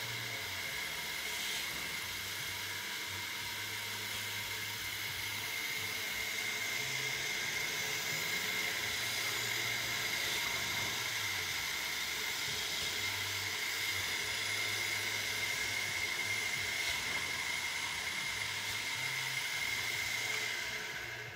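Multi-spindle drilling machine running: a steady high whine over a constant hiss, getting slightly louder a few seconds in.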